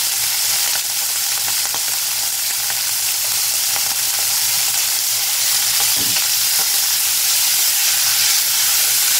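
Shrimp frying in hot oil in a stainless steel saucepan: a steady, even sizzle, with a faint low hum underneath.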